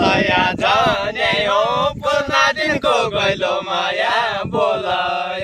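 Men singing a Deuda folk song, unaccompanied, in long drawn-out notes that waver and bend in pitch.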